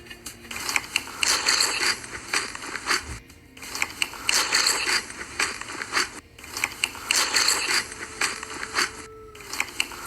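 Crunchy food being chewed close to the microphone, in about four crackling bursts of a second or two each with short pauses between them.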